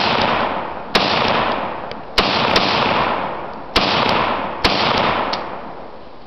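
Rifle fired four times at a slow, fairly even pace, each sharp crack followed by a long rolling echo that dies away over about a second. A few fainter cracks fall between the shots.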